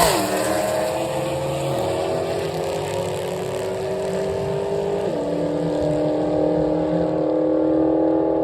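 Drag race car accelerating hard down the strip. The engine note drops sharply on an upshift right at the start and again about five seconds in, and climbs steadily in between.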